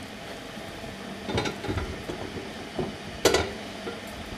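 A ladle stirring sugar syrup in a pot, clinking and scraping against the pot in a few short knocks, with one sharp, louder knock about three seconds in.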